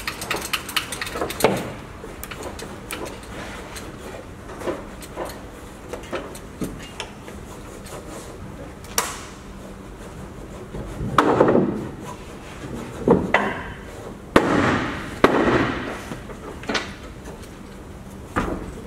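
Hull planking work on a wooden boat: scattered knocks, taps and clatter on wood, with two louder noisy bursts of about a second each in the middle.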